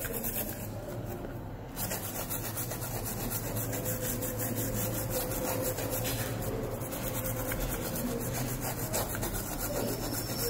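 Small brush scrubbing a laptop motherboard in rapid back-and-forth strokes, bristles rasping over the chips and circuit board to clean off liquid-damage corrosion.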